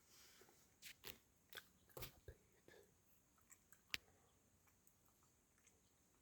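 Near silence with a scatter of faint, short clicks and taps, the sharpest about four seconds in.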